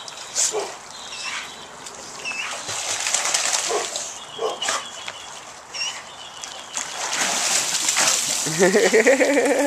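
A golden retriever and a yellow Labrador swimming in a pool, paddling and splashing the water. A brief voice rises near the end.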